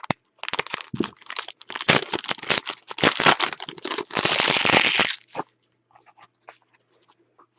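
Plastic wrapping on a box or pack of trading cards crinkling and being torn open, a rapid crackle that is loudest just before it stops about five seconds in.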